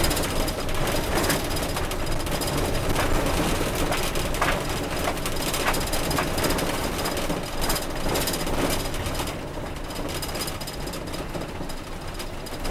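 Motorhome driving, heard inside the cab: steady engine and road noise with scattered knocks and rattles from the vehicle on a road full of potholes. The noise eases a little about nine seconds in.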